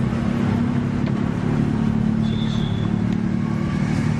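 Motor engine running steadily, its low hum unchanging over the street noise, with a short high tone about two seconds in.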